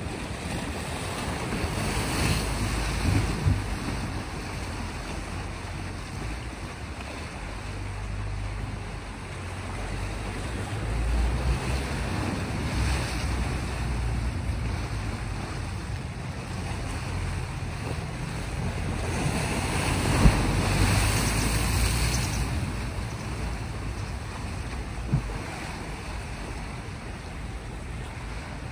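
Small sea waves washing against a rocky shore, swelling and easing every several seconds, with wind buffeting the microphone as a low rumble.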